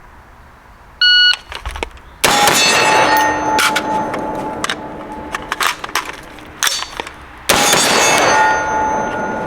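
A shot timer beeps once, then an AR-15 with an HM Defense Mono Flash Forward 5.56 upper fires a timed string of shots, the first about a second after the beep and the last near the end, with steel targets ringing after the hits.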